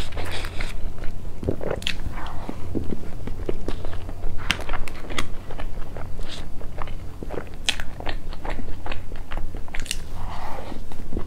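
Close-miked eating sounds: a person chewing soft cream cake with wet mouth smacks and many short irregular clicks, over a low steady hum.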